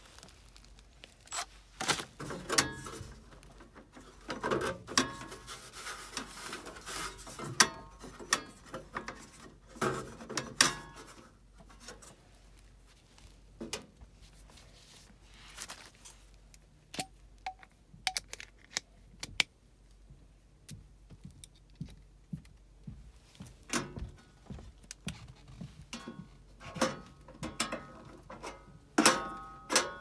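Irregular clicks, knocks and rustles of hand tools and sheet-metal parts being handled as an old Rheem gas furnace is taken apart, with brief metallic jangling about five seconds in and again near the end.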